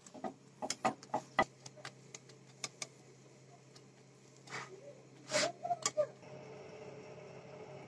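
Spatula tapping and scraping on a non-stick frying pan while an aloo paratha is pressed down and moved: a string of short sharp clicks with a couple of longer scrapes, then a faint steady hum takes over about six seconds in.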